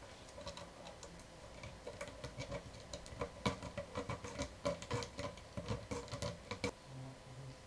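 Cat clawing the bark of a tree-branch scratching post: a quick, irregular run of scratchy clicks that thickens about two seconds in and stops abruptly near the end.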